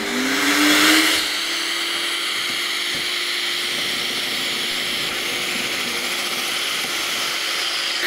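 Festool mobile dust extractor set to manual mode, running continuously: its motor finishes spinning up with a rising whine in the first second, then runs at a steady pitch.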